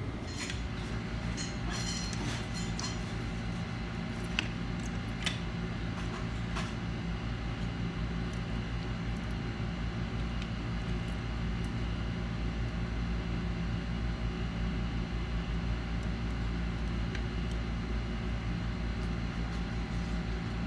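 Steady low electrical or mechanical hum in the room, with a few light clicks and taps in the first several seconds.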